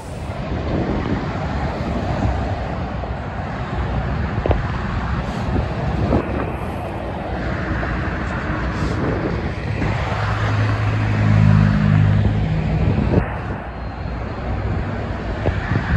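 Road traffic passing: a steady rush of tyres and engines from cars and trucks. About two-thirds of the way through, a heavy truck's engine drones loudly for a few seconds.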